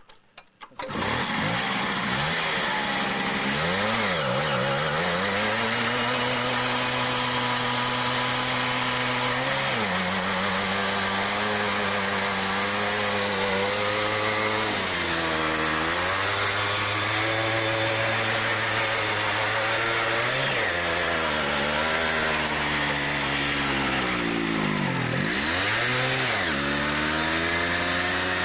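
Simson Star moped's 50 cc single-cylinder two-stroke engine catches about a second in and is then held at high revs for a rear-wheel burnout, dropping and picking back up about five times.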